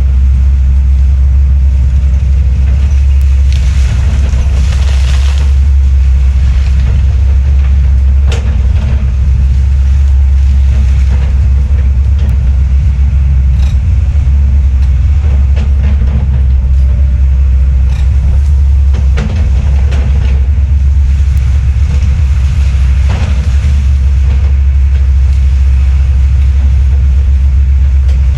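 Heavy land-clearing machinery running steadily with a loud, deep drone, with sharp cracks now and then over it.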